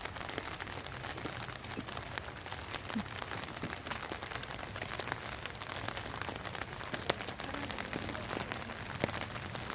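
Steady rain falling, with many separate drops ticking sharply on a hard surface.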